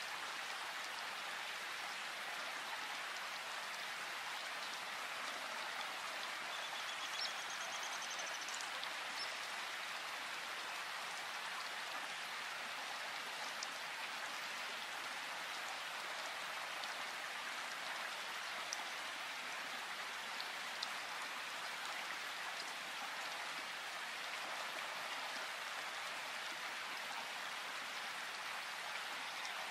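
Steady rain falling in a forest, an even hiss of drops with a few louder single drops standing out.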